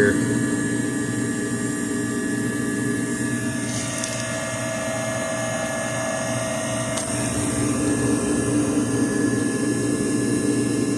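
Walk-in cooler's refrigeration condensing unit running, a steady mechanical hum with a constant whine over it.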